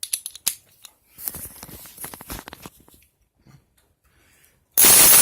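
Hyper Tough ratchet wrench clicking as its pawl ratchets, a string of quick irregular clicks. Near the end the ratchet is spun fast and gives a loud, continuous buzzing rattle.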